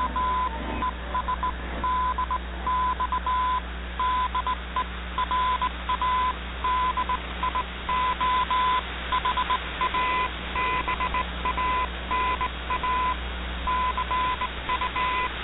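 Morse code sent as a keyed tone near 1 kHz, short and long beeps in irregular groups, heard through a noisy shortwave AM broadcast with steady hiss and a low hum underneath.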